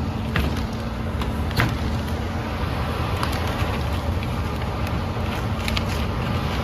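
Furnace indoor blower fan running with a steady low rumble and hum, with a few scattered clicks and knocks of handling, one sharper about one and a half seconds in.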